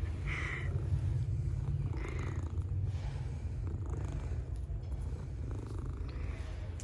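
A tortoiseshell cat purring steadily, a low continuous rumble, while being scratched under the chin.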